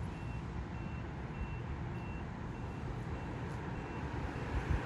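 An electronic warning beeper gives a short, high beep about every 0.6 seconds over a low, steady rumble. The beeping stops about four seconds in.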